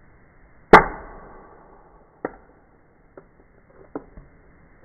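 A hammer strikes a metal punch set on the rivet post of a die-cast toy car: one sharp, loud strike that rings for about a second, followed by three light clicks.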